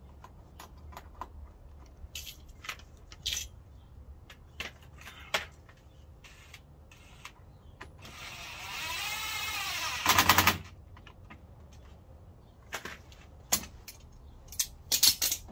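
Cordless impact driver driving in a fastener on a car's front spoiler: the motor spins freely for about two seconds, then hammers rapidly for about half a second as the fastener tightens. Scattered clinks and knocks of tools and hardware being handled come before and after.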